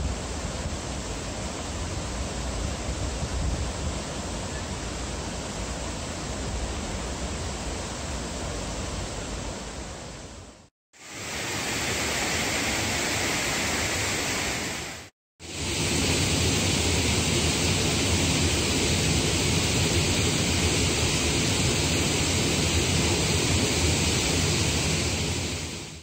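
Steady rush of water from a stream's cascade, an even hiss of noise, broken twice by brief drops to silence and fading out at the end.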